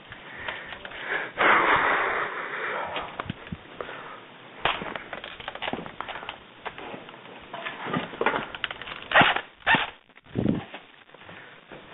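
Airsoft play heard close to a helmet-mounted microphone: a stretch of loud rustling noise about a second and a half in, then scattered sharp pops and clicks, several of them close together near the end, and a dull thud.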